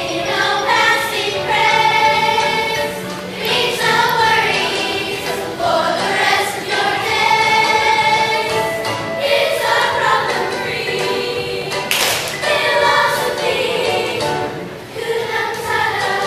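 A group of schoolchildren singing a song together in unison, the melody continuing without a break. About twelve seconds in, a single sharp knock cuts through the singing.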